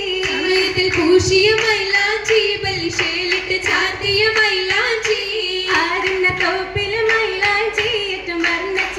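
Oppana song: female voices singing a Mappila song in chorus, over steady rhythmic group handclapping a few claps a second.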